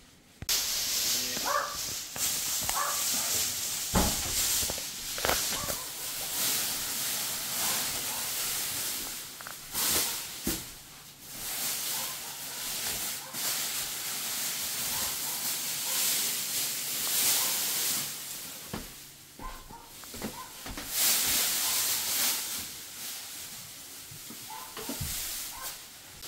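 Thin plastic protective sheeting rustling and crinkling as it is handled and pressed against walls and cabinets, with a few knocks.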